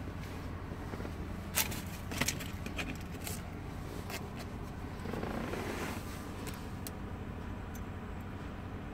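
Sharp plastic clicks and a short rubbing rustle from handling a small GPS module box and its cable, over a steady low hum in a car cabin. The loudest click comes about one and a half seconds in, two more follow close together, and the rustle comes about five seconds in.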